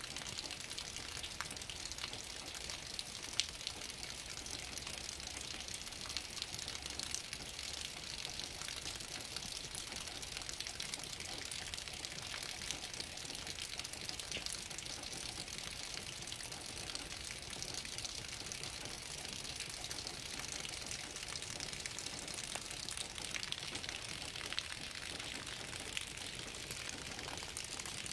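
Steady rain falling: a continuous hiss dotted with many small ticks of drops striking close by.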